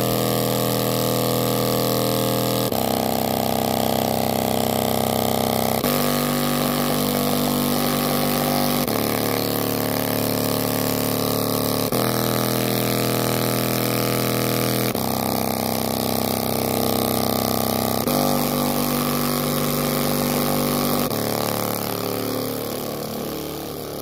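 A tiny speaker with a passive radiator playing loud, heavily distorted bass notes that change about every three seconds. The driver and passive radiator are being pushed to extreme excursion, and the distortion gives the sound a buzzy, motor-like edge.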